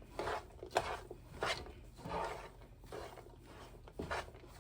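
A spoon or spatula scraping and stirring through a pot of stuffing mixed with cornbread mix, in a run of short scraping strokes under a second apart.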